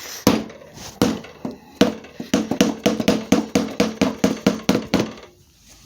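Dead blow hammer striking the front wheel to drive the fork tubes down out of the triple clamps: a few spaced blows, then a quick run of about five blows a second that stops about five seconds in, with a faint metallic ring under the hits.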